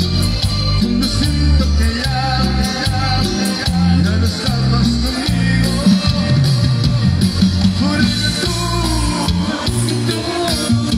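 Live band playing Latin dance music through a PA, with a walking electric bass line, congas and drum-kit percussion, and electric guitar.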